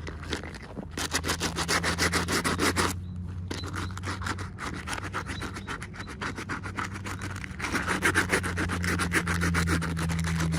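Rapid, even rubbing or scratching strokes in three long runs, about a second in, near four seconds and near eight seconds, over a steady low hum.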